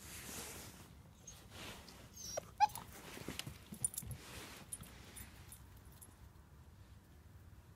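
Husky puppy giving one short, high whimper about two and a half seconds in, among soft rustling and a few light clicks.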